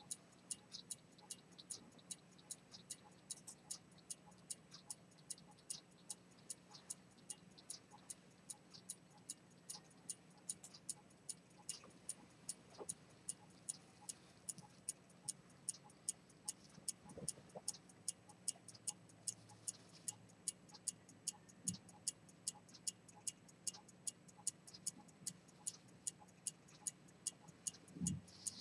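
Antique 18k gold fusee pocket watch with a pivoted-detent chronometer escapement, running with a steady, even tick of roughly two and a half ticks a second. A few soft knocks come from the case being handled, the last near the end.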